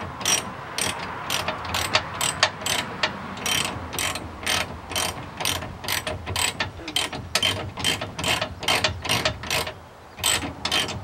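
Ratchet wrench turning a bolt, its pawl clicking in quick back-and-forth strokes, about two to three bunches of clicks a second, with a brief pause near the end.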